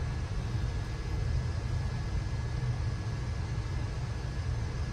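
Steady low rumble of background room noise with a faint thin high tone over it, unchanging, with no distinct events.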